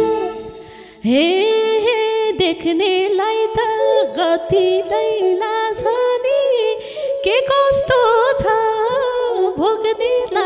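A woman singing a Nepali lok dohori verse over a held accompanying note. She comes in about a second in, after the band's instruments die away.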